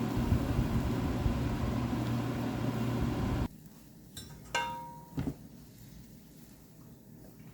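Kitchen range hood fan running with a steady whirring hum, switched off abruptly about three and a half seconds in. A few light clicks and knocks follow, with a short beep about a second later.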